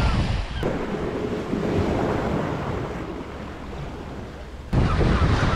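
Sea waves washing and breaking over shore rocks, with wind buffeting the microphone. The sound drops abruptly about half a second in, stays quieter for about four seconds, then jumps back up near the end.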